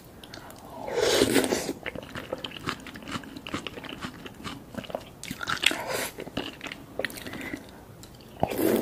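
Close-up eating sounds of a person biting and chewing sauce-coated boiled egg: wet chewing, smacks and small clicks, with louder mouth sounds about a second in and again near the end.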